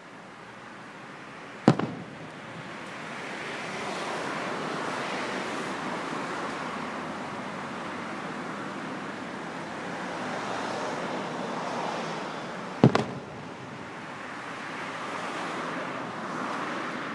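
Two aerial firework shells bursting, one about two seconds in and another about eleven seconds later, each a single sharp boom with a short echo. Between them is a steady rushing noise that swells and fades.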